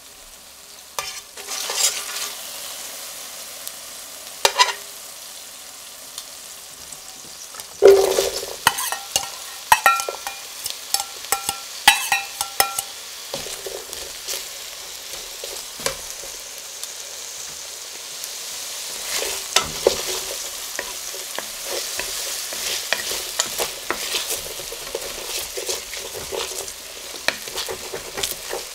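Chopped onion fried in a hot stainless steel pot: a sudden burst of sizzling about eight seconds in as the onion goes into the hot fat, then steady sizzling while it is stirred, with the utensil clicking and scraping against the pan.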